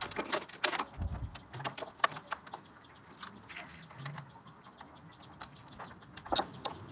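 Irregular light clicks and rattles of small parts being handled while a new ABS wheel speed sensor and its cable are fitted at a front wheel hub. The clicks come thick at first, thin out through the middle, and bunch up again briefly near the end.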